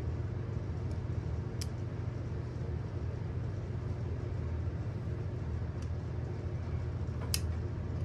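Steady low background hum, with a few sharp metal clicks from a stainless multi-tool as its fold-out tools are worked and snapped into place; the loudest click comes near the end.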